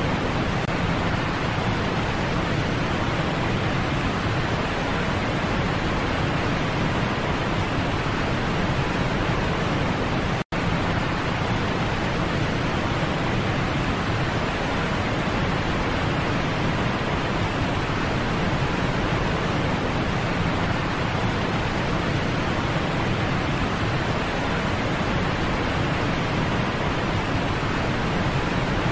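Steady rushing of falling water, like a waterfall pouring over a dam spillway, broken once by a split-second gap about ten seconds in.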